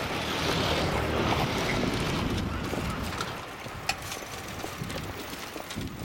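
Electric train running along the line, heard from the front of the train: a steady rush and rumble that eases after about two and a half seconds, with a few sharp clicks of wheels over rail joints.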